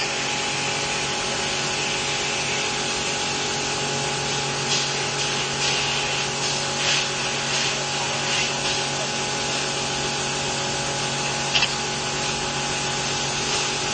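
A steady mechanical hum with hiss, like a small motor running. A few short high-pitched sounds come between about five and nine seconds in, with a brief sharp sound near the end.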